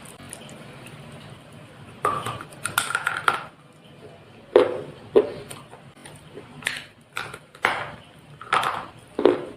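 Slate pencils being bitten and crunched close to the microphone: a run of sharp, dry crunches, about nine of them at uneven intervals, starting about two seconds in.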